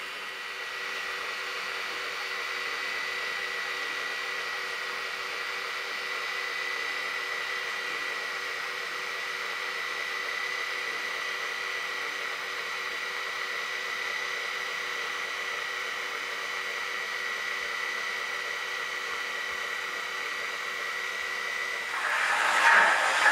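Piko model Class E 91 electric locomotive's sound decoder playing electric locomotive running sound: a steady hum with a high whine held on one pitch. About a second before the end, a louder hissing steam locomotive sound takes over.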